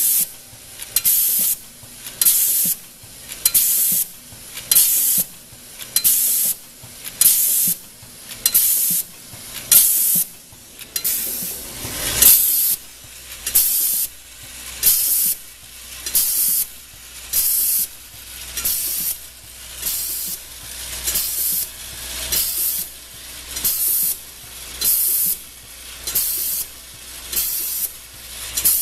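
Hydraulic lock-nut crimping machine cycling automatically, with a short sharp hiss about once a second as each nut is pressed. A low steady hum joins about twelve seconds in.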